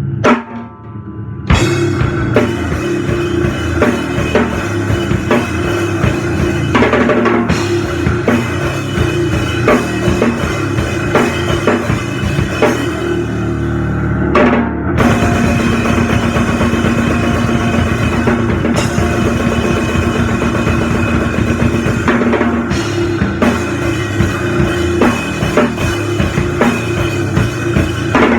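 Live powerviolence band playing loud and dense, with the drum kit to the fore: bass drum and cymbals hammering. The band drops out briefly about a second in and again about halfway through, then crashes back in.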